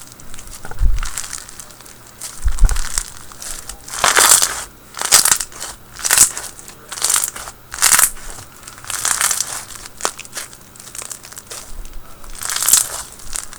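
White-glue slushie slime being squished and folded by hand, giving a crackly, crunchy squish about once a second. There are a couple of soft low thumps in the first few seconds.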